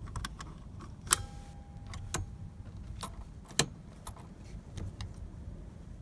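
Seat belt's metal latch plate and hardware being handled: scattered sharp clicks and clinks, the loudest about a second in with a brief metallic ring after it, and another strong click at about three and a half seconds.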